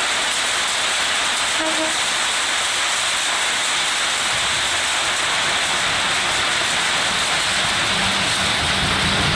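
Heavy monsoon rain pouring steadily, with the diesel engine of an approaching WDM-3A locomotive (ALCO 251 V16) building underneath from about halfway through, its engine note coming through clearly near the end.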